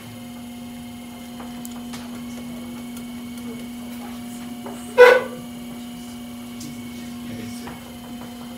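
Electric potter's wheel motor humming steadily as it spins while clay is being centered. About five seconds in there is one brief, loud, sharp sound.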